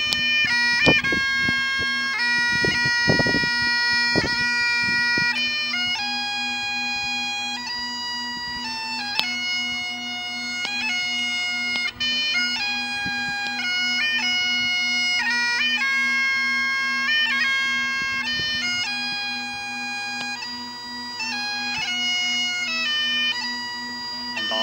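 Bagpipes playing a slow tune of held notes over a steady drone.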